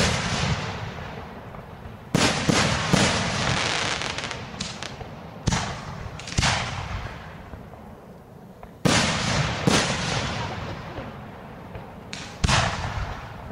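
Aerial firework shells bursting: about seven sharp bangs, mostly in pairs about a second apart, each trailing off in a long echo.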